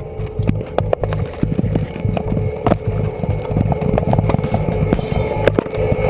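Background music with drums and percussion: a steady low beat with many sharp hits.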